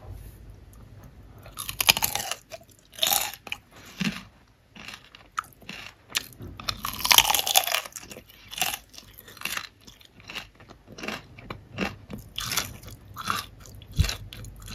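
Crispy fried potato chips being bitten into and chewed with loud crunches. A few big bites come in the first half, the loudest about seven seconds in, then quicker chewing crunches, about two to three a second.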